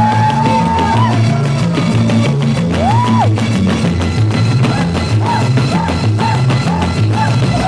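Background music with a steady beat, a stepping bass line and a gliding lead melody.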